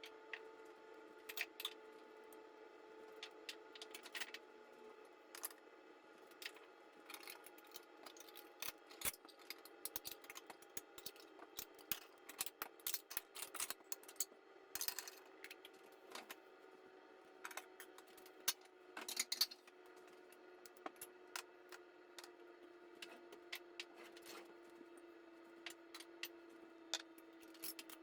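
Scattered light clinks and taps of kitchen utensils and dishes being handled, over a steady hum that slowly drops in pitch.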